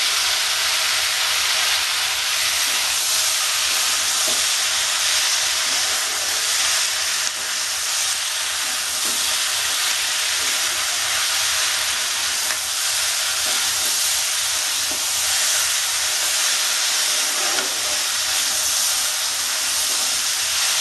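Chopped vegetables sizzling in oil in a nonstick pot, a steady frying hiss, while a spatula stirs them with light scrapes now and then. The spiced vegetables are being sautéed (kasha) for khichuri.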